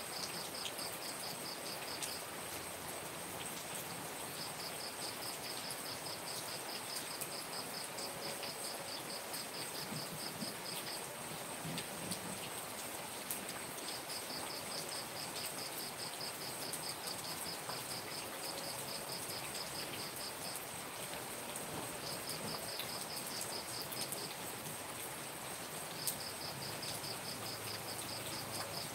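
Steady rain falling. An insect trills in pulsed trains several seconds long, stopping and starting, over a thin steady high tone.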